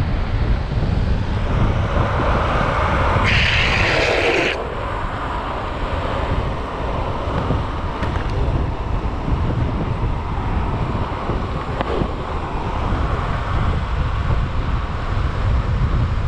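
Wind buffeting an action camera's microphone at speed during a downhill longboard run, over the rumble of longboard wheels on asphalt. A brief, brighter hiss rises over it about three seconds in and stops about a second later.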